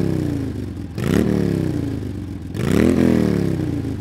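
Motorcycle engine being revved. Twice, its pitch shoots up sharply with a loud rasp and then sinks back slowly, the two revs about a second and a half apart.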